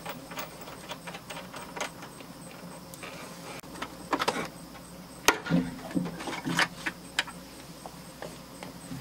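Scattered clicks and knocks of plastic and metal as a pickup truck's side mirror is lifted off the door and its wiring harness pulled out through the door hole, the sharpest knock about five seconds in.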